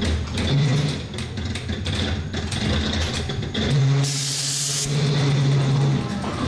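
Dark-ride car rolling through a haunted house with a steady low hum from the ride, and a short loud hiss of air about four seconds in, lasting under a second, like a pneumatic air-blast scare effect.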